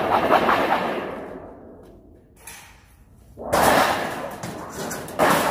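A large sheet-metal radiator shroud scraping and rattling as it is handled, then thrown onto a heap of scrap metal: two sudden loud crashes, one about three and a half seconds in and another near the end.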